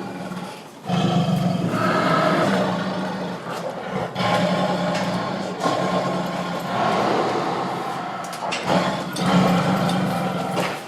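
Tiger growling: long, deep growls several seconds each, with brief breaks for breath about a second in, about four seconds in and near nine seconds.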